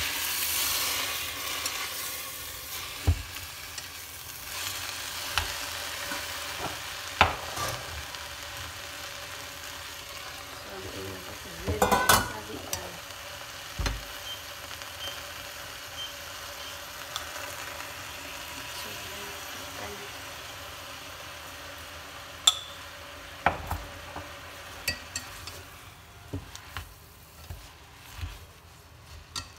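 Sweet potato leaves sizzling in a stainless steel pot, the hiss strongest at the start and fading. Wooden chopsticks knock and scrape against the pot as the greens are stirred, with a burst of knocks about twelve seconds in and a run of taps near the end.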